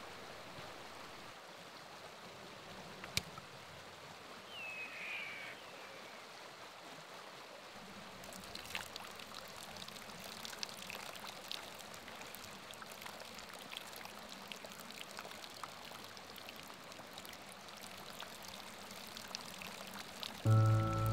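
Creek water flowing and trickling steadily, with small splashy ticks that grow busier after about eight seconds and a single short falling chirp about five seconds in. Music comes in just before the end.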